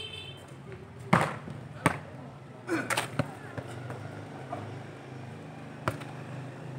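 A football being kicked: several sharp thumps, the loudest about a second in, another just before two seconds, a quick cluster near three seconds and one more near six seconds, over the murmur of players' and onlookers' voices.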